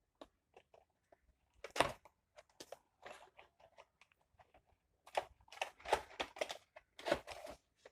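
Cardboard keyboard box being opened by hand: scattered small clicks, scrapes and rustles of packaging. There is one louder burst about two seconds in and a busier stretch of handling near the end.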